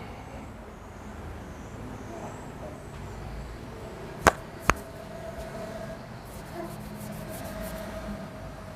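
Two sharp clicks about half a second apart, a little before the middle, over a faint steady background hum.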